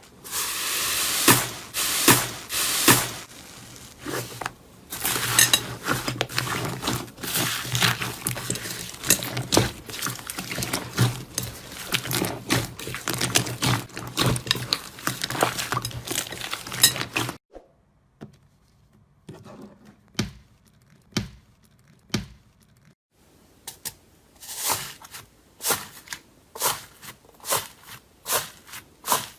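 Slime being squeezed and worked by hand: a dense run of crackling pops and clicks. About 17 seconds in it changes abruptly to quieter, separate sticky pops, coming more often near the end.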